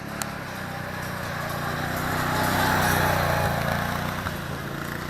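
A motor vehicle's engine passing close by, growing louder to a peak about three seconds in and then fading.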